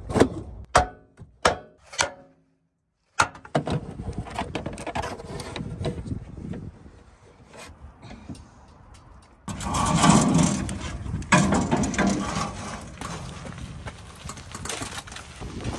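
Hand tools and metal parts clanking and scraping during engine removal, in short clips cut together. Several sharp metallic knocks ring briefly in the first two seconds, then a sudden break, then rubbing and scraping that gets louder about nine and a half seconds in.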